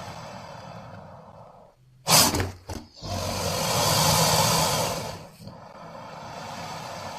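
Cartoon monster roar sound effect: two short, sharp loud blasts about two seconds in, followed by a longer roar of about two seconds that swells and fades, over a steady background hiss.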